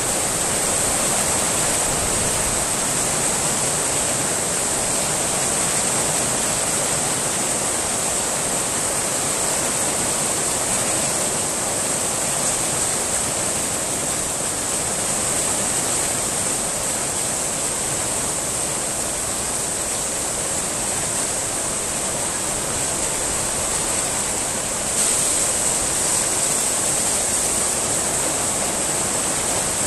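Steady rain falling onto stone paving, a dense even hiss that gets a little louder about 25 seconds in.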